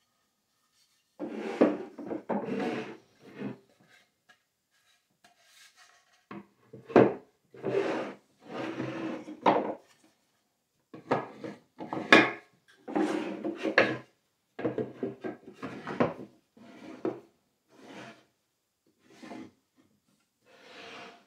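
Solid-wood drawers of bandsaw boxes sliding out and back in, wood rubbing on wood in repeated scraping strokes with short pauses, and a few light knocks as drawers and box parts meet.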